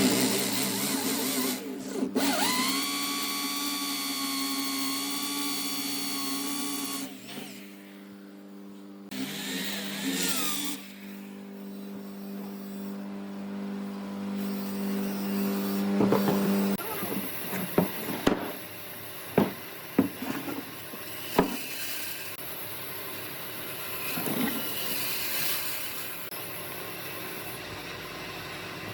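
Woodworking power tools running: a steady motor hum, with a higher whine for a few seconds near the start. The hum stops about halfway through, and several sharp knocks follow.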